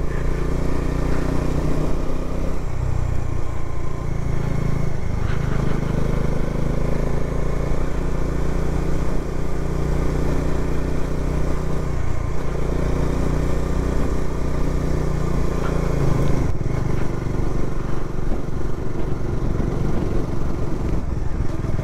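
Bajaj Dominar 400 single-cylinder motorcycle engine running steadily under way, its note dipping briefly a few times as the throttle eases and picks up again.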